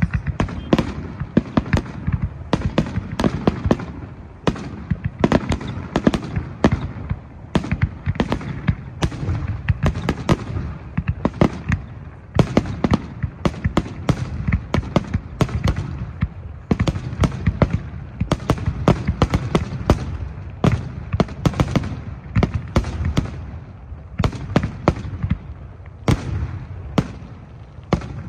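Aerial firework shells bursting in rapid succession, several sharp bangs a second over a continuous low rumble.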